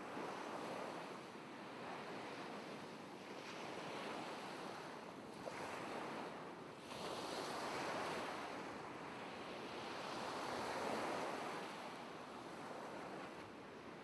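Ocean surf: a steady wash of waves, swelling and easing every few seconds.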